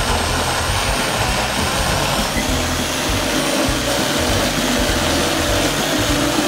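High-speed countertop blender motor running steadily at full power, pureeing leafy greens, celery, fruit and water into a smooth green smoothie.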